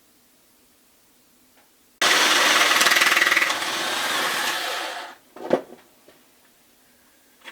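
Power drill drilling out a rivet on a tool cart's drawer latch. It starts suddenly about two seconds in, runs for about three seconds and winds down, and a single sharp knock follows about half a second later.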